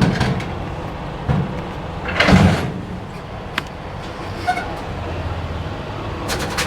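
Clunks and knocks of a jug and reservoir cap being handled while the truck's windshield washer fluid is topped up, over a steady low hum. The loudest part is a short noisy rush about two seconds in.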